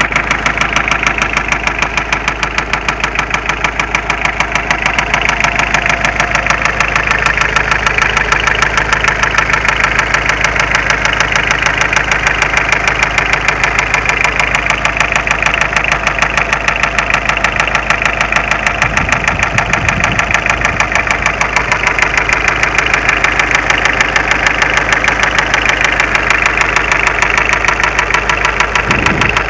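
Mitsubishi Space Runner 2.0 diesel engine running at a steady speed with a loud, even, rhythmic knocking and shaking. The engine runs smoothly without hunting, and the knock, which came on suddenly while driving, did not change when an injector was slackened off.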